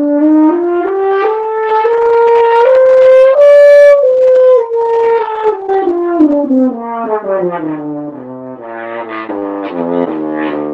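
Solo French horn playing a line that climbs note by note to a high held note about four seconds in, then steps back down into its low range, then goes on with a quicker run of short low notes, showing off the horn's range.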